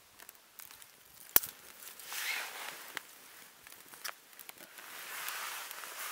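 A smouldering tinder bundle of pine needles and dry twigs crackling, with one sharp snap about a second and a half in. Two swells of breathy rushing noise, each about a second long, rise and fade over the crackling.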